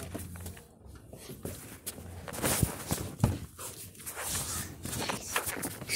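Footsteps and cloth rustling as a phone is carried against clothing, with a few irregular knocks.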